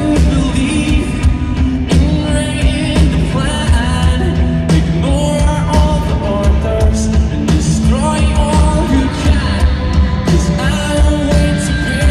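Rock band playing loudly with drums, bass, electric guitar and a singer holding long notes.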